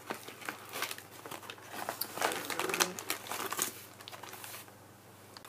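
Plastic packaging crinkling and rustling, with irregular clicks, as tightly packed kit parts are worked free by hand; it dies down about four and a half seconds in.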